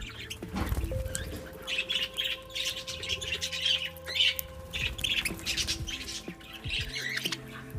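Budgerigars chirping and squawking in a rapid stream of short calls.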